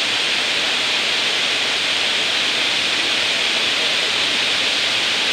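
Steady rushing of water from a river waterfall, an even roar that does not change.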